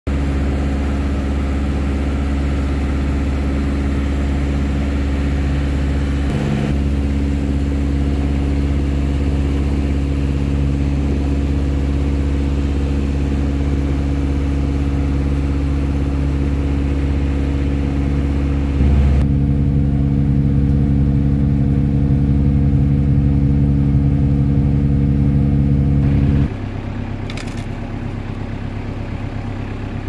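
A small boat's motor running steadily with a low, even hum. Near the end it drops suddenly to a quieter running sound.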